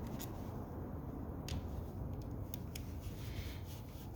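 A few small, sharp clicks from a screwdriver and hands working the side-plate screws of a spinning reel during disassembly.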